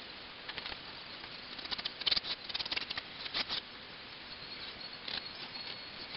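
Pencil scratching on a large sheet of drawing paper in quick, short strokes. The strokes come in clusters, densest between about two and three and a half seconds in, over a steady hiss.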